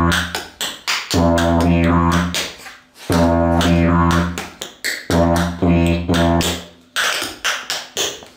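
Didgeridoo playing a deep drone in rhythmic phrases with short breaks, over the clicks of tap shoes tapping out a rhythm. About seven seconds in the didgeridoo stops and the taps carry on alone.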